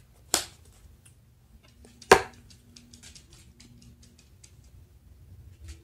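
Handling noises: a sharp click, then a louder knock about two seconds in, followed by a string of faint light ticks and one more click near the end.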